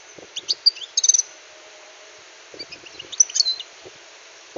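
European goldfinch calling and twittering in short bursts of quick, high chirps, once near the start and again about three seconds in.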